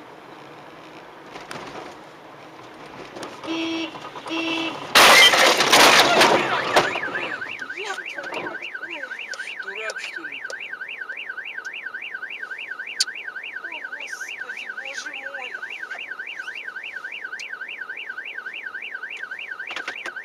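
Car horn honks twice, then a vehicle collision hits with a loud crash, and right after it a car alarm starts up, warbling rapidly up and down without a break.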